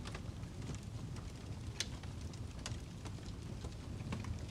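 Wood fire crackling, with scattered sharp pops over a low, steady rumble.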